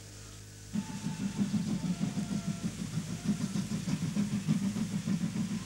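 Steam locomotive approaching on the track: a heavy, low, fluttering rumble that starts suddenly about a second in, after a faint hum.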